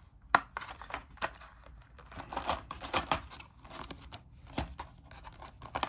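Clear plastic clamshell container being handled, crinkling, with irregular sharp clicks and snaps of the thin plastic.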